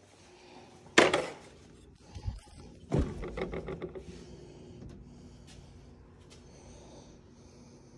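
A sharp knock about a second in, then around three seconds a knock followed by a brief rattle of quick clicks as a ceramic mug is set into a refrigerator's door dispenser. Then only faint background noise.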